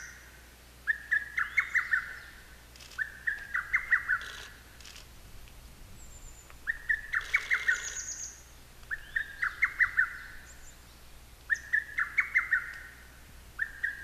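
Lesser cuckoo singing its loud, rapid phrase of about six sharp notes ending in a held note, repeated six times at intervals of two to three seconds. A thin, high call from another small bird sounds briefly about six and eight seconds in.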